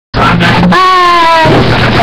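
A girl's voice through a webcam microphone, very loud and near clipping, holding one high note for about a second and falling slightly in pitch.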